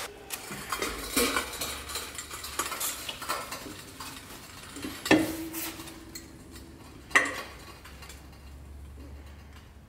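Two-post car lift being worked: scattered metallic clanks and clicks, with a short steady tone about halfway through and a faint low hum at times.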